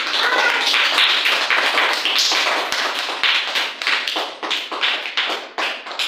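A group of children clapping their hands, a quick, steady run of claps.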